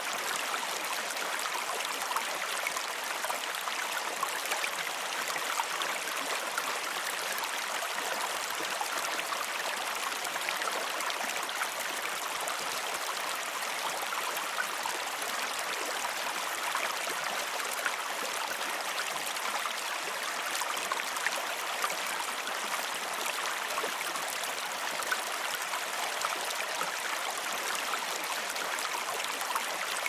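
Flowing water running steadily: an even rushing with many small splashy ticks and drips.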